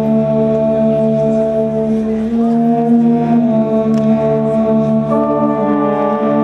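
Wind band of clarinets, saxophones and brass playing slow, held chords, the harmony changing about every two to three seconds.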